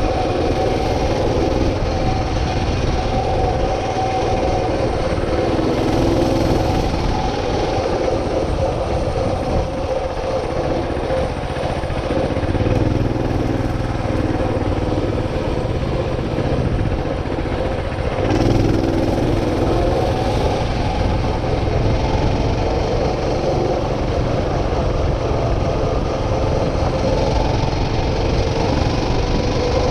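A small motor running steadily with a constant hum, mixed with wind and road noise from riding along a paved path.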